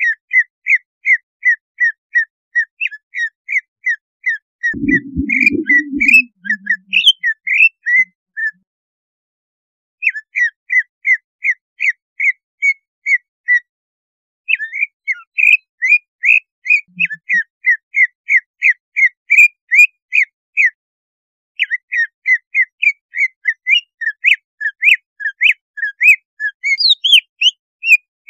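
Cucak ijo (green leafbird) singing: runs of short, sharp whistled notes at about three to four a second, broken by brief pauses. It is the lure song keepers play to rouse a cucak ijo's breeding drive. A brief low rumble sounds about five seconds in.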